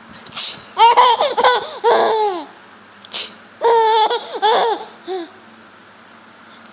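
Six-month-old baby laughing in two bouts of quick, high-pitched giggles. Each bout comes just after a short breathy burst, the fake sneeze that sets her off.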